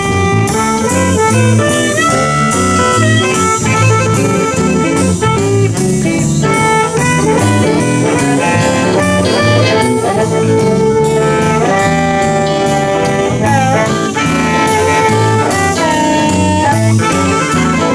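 Live blues band playing a shuffle, with a saxophone solo over electric guitars, bass and drums.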